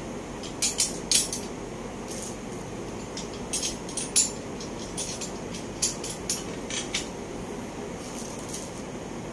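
Steel tube frame of an IKEA Adde chair clinking and tapping as it is handled and fitted together: a string of sharp, irregular metallic clicks, the loudest about a second in and about four seconds in.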